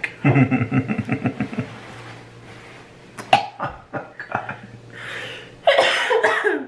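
People gagging and coughing, with stifled laughter, at the smell of freshly cut-open durian; a loud, harsh cough-gag comes near the end.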